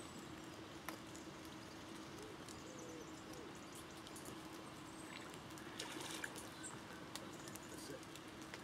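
Quiet lakeside ambience in light rain: scattered faint raindrop ticks over a steady low hum, with a few faint bird calls.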